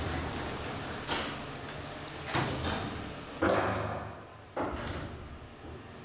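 Elevator's stainless steel sliding doors knocking and clunking, with four sharp knocks about a second apart, the loudest about three and a half seconds in.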